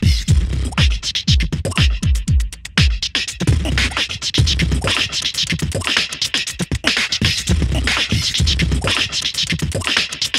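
Background music with a beat: deep bass hits that slide down in pitch, about three a second at first, under busy high percussion.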